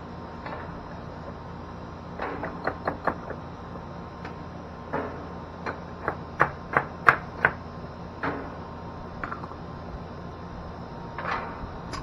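Sharp clinks and knocks of clay paver bricks and hand tools (hammer, pliers) as the bricks are worked loose and lifted: a few knocks about two seconds in, then a quicker run of taps a little after the middle. Under it runs the steady hum of an air-conditioning condenser unit.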